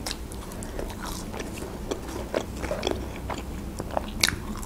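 A person chewing a McDonald's French fry dipped in sauce, with scattered small mouth clicks and smacks and a sharper click about four seconds in.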